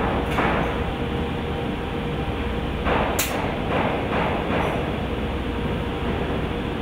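Steady machinery drone of a woodworking shop with a faint steady hum. Over it come several short scraping strokes of a hand blade drawn along the edges of routed MDF, with a sharp click about three seconds in.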